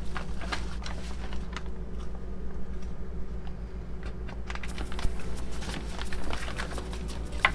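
Scattered light rustles and clicks of the white wrapping sheet under a raw seasoned brisket being handled, over a steady low hum.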